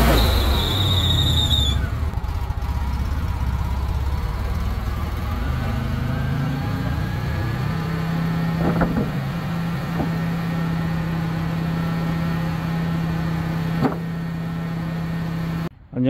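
Wood-Mizer LX150 portable band sawmill's engine running as a pass through the log ends. A high whine cuts off about two seconds in. The engine then runs steadily with a low hum while the saw head is returned, broken by a few light knocks.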